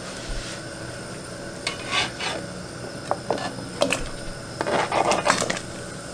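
Sweet potato chunks being scraped off a plastic cutting board with a metal scraper and dropping into a pot of boiling water: scattered scrapes and knocks, busiest about five seconds in, over the steady hiss of the boil.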